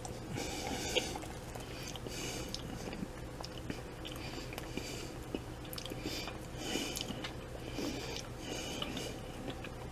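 A man chewing a mouthful of shepherd's pie close to the microphone, in a steady rhythm of about one to two chews a second, over a low steady hum.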